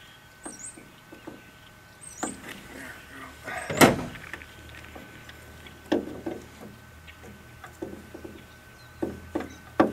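Hand crimper closing on small wire connectors, with scattered clicks and handling noises of wire and tool and one sharp snap just under four seconds in.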